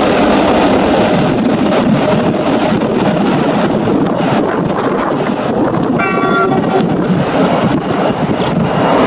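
Boeing 747-8F freighter's four GEnx-2B turbofan engines, very loud as the jet passes low and lands: a steady, dense jet rush. About six seconds in, a brief high tone with overtones sounds over it.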